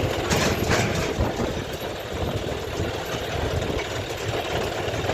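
Heavy diesel engine running with an uneven, low rumble; there is a brief noisy rustle about half a second in.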